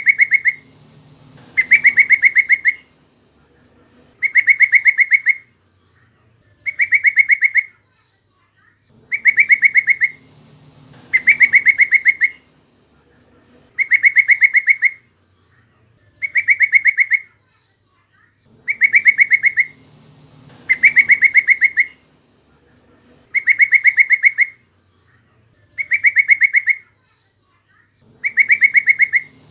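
Yellow-vented bulbul (trucukan) calling over and over: short bursts of rapid, bubbling chattering notes, one roughly every two seconds, thirteen in all, loud. It is a repeated lure call meant to draw out other trucukan and set silent birds singing.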